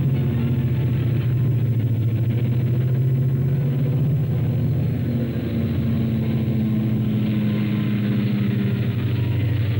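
Large diesel engines of Haulpak mine haul trucks running as the trucks drive past, a steady low engine note that shifts lower about halfway through.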